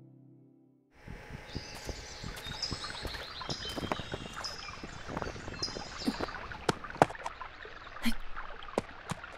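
After about a second of near silence, outdoor ambience of songbirds chirping in repeated high trills over a steady breezy hiss, with scattered sharp clicks.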